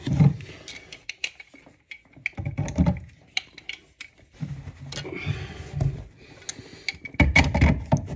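Metal hand tools clicking and scraping on a compression angle stop, with dull knocks and rubbing of hands and tools close to the microphone; the loudest cluster of knocks comes near the end.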